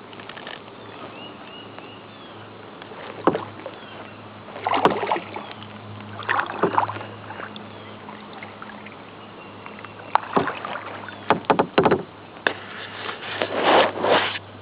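Kayak paddle strokes: the blade dipping and splashing in the water in irregular bursts a second or few apart, over a low steady hum.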